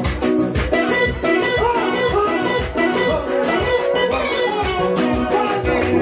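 Upbeat gospel dance music played on an electronic keyboard: a quick, twisting guitar-like lead melody over a steady drum beat.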